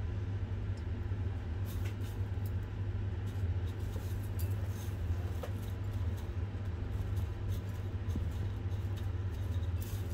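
Crushed cornflakes crunching and rustling faintly as a gloved hand rolls an egg-coated chicken ball in them, over a steady low hum.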